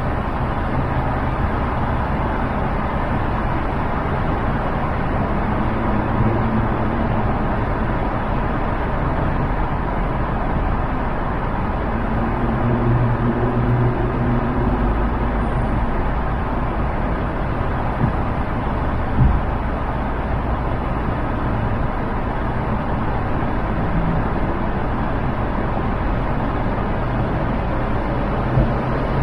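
Car driving at freeway speed: steady road and tyre noise, with a low hum swelling twice and a couple of short thumps, one about two-thirds of the way through and one near the end.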